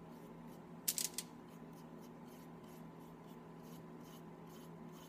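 Paintbrush strokes spreading brown paint on wooden craft sticks: faint, repeated scratchy brushing, with a short cluster of louder strokes about a second in, over a steady low hum.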